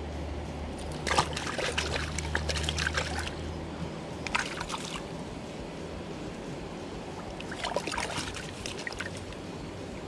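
Shallow creek water splashing and dribbling around a hand lowering a small trout back into the water to release it. There are three short spells of splashing: about a second in, around four and a half seconds, and near eight seconds.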